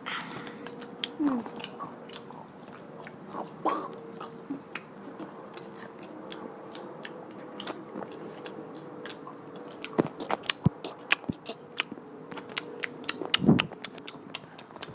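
Someone eating: chewing and crunching with scattered small crackling clicks, growing busier and louder near the end.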